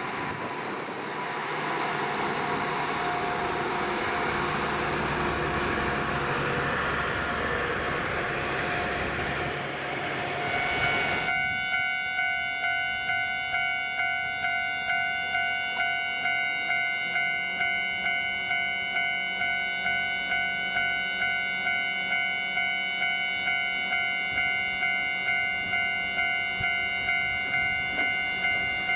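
A rushing noise runs for about the first ten seconds, then stops abruptly. A Japanese railway level-crossing warning bell then takes over, its electronic ding-ding ringing at an even pulse of about two strikes a second as a train approaches. A low engine tone comes in faintly about halfway through.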